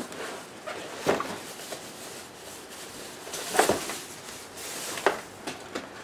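Plastic packaging bags rustling and crinkling as wrapped parts are handled and pulled out of a cardboard box, with three louder rustles: about a second in, midway, and near the end.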